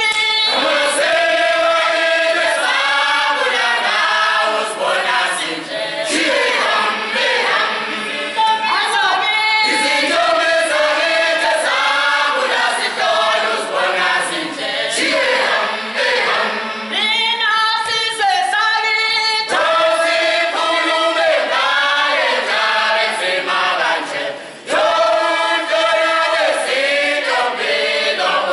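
A group of voices singing a Zulu song together in repeated phrases, with a short break about three-quarters of the way through.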